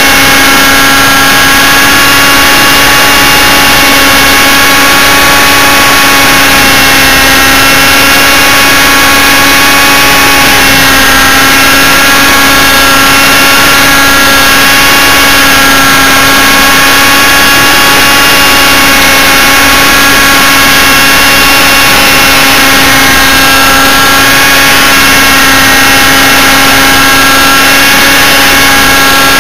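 Model helicopter's motor and rotors running in flight, heard from a camera mounted on the helicopter itself: a loud, steady drone whose pitch drifts slightly now and then.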